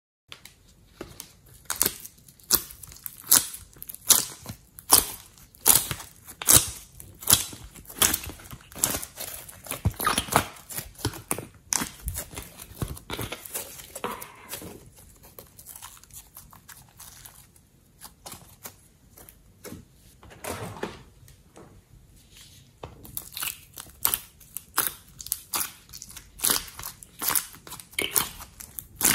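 Soft clay and slime being squeezed and pressed by hand, giving a string of sticky, crackling clicks and snaps. They are quieter for a few seconds in the middle and grow busy again near the end.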